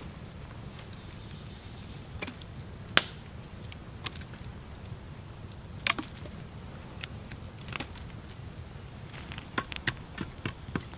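Wood campfire burning with a low steady rush and scattered sharp pops. Near the end a shovel digs into the burning logs, a quick run of knocks and scrapes.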